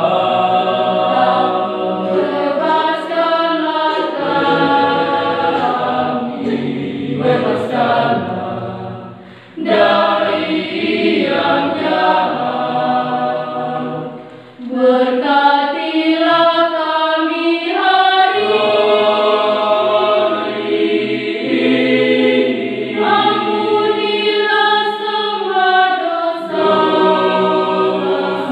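Mixed youth church choir singing unaccompanied in parts, holding long chords, with two brief breaks between phrases about nine and fourteen seconds in.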